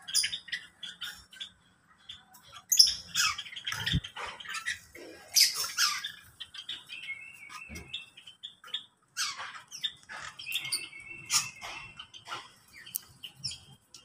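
Mixed caged birds calling over one another: short squawks and chirps with a few held whistled notes, and a sharp knock about four seconds in.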